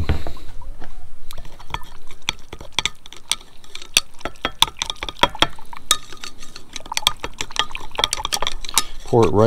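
Metal screwdriver shaft stirring water in a Pyrex glass measuring cup, clinking irregularly and often against the glass as it dissolves amprolium (Corid) powder.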